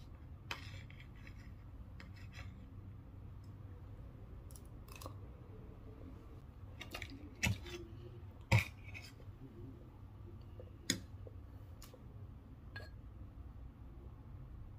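Metal fork and spoon clicking and scraping against a plate while eating, in scattered light clicks with three sharper clinks around the middle, over a faint steady low hum.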